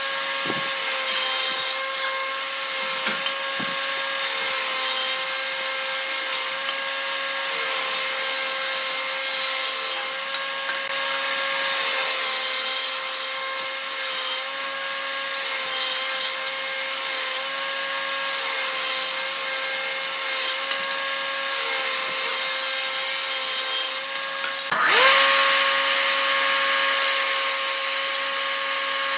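Electric power tool running with a steady whine while it cuts or sands wood, with a rough rasping of wood under it. About 25 s in the motor's pitch drops briefly and climbs straight back up.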